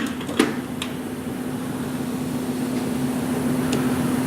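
Steady machine hum: a low, even tone under a hiss like moving air. Two light clicks come about half a second and about a second in.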